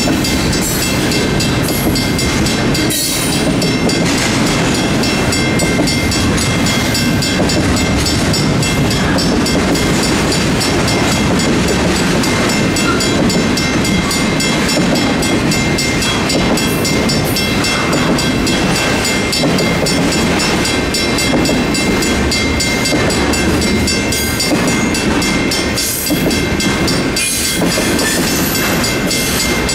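Union Pacific intermodal freight cars rolling steadily past a grade crossing, wheels clacking over the rail joints. The crossing's warning bells, a WCH mechanical bell and an electronic bell, keep ringing throughout.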